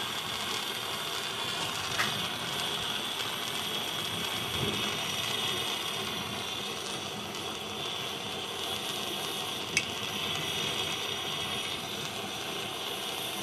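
Gas torch flame hissing steadily as it heats a small mild-steel part for riveting, with a couple of faint clicks.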